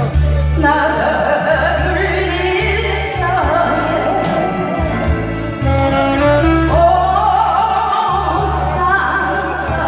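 A singer sustaining long, wavering notes of a Korean popular song over backing music with a steady drum beat and bass.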